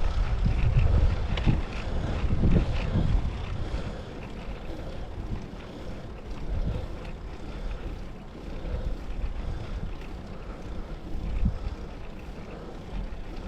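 Wind buffeting the microphone of a camera mounted on a moving rider, a low rumble that is heavy for the first few seconds and then eases, with one stronger gust near the end.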